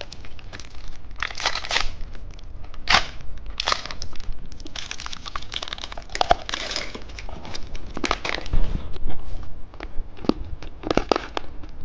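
Plastic candy packaging crinkling and crunching in irregular bursts.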